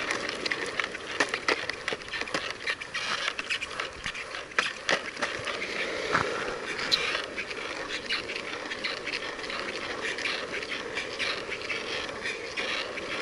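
Longboard wheels rolling on an asphalt bike path: a steady rolling hum with frequent clicks and ticks from bumps and cracks in the pavement.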